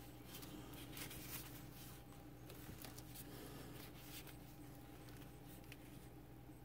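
Near silence: a steady low room hum with faint rustles and light taps of hand-and-tool handling.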